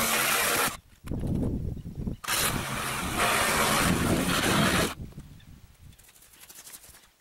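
Reciprocating saw (sawzall) running in three bursts while cutting, the longest lasting about two and a half seconds and stopping about five seconds in.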